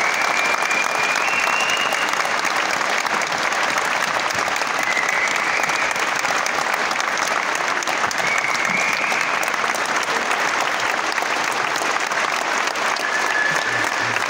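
Concert audience applauding steadily, with a few short high tones now and then.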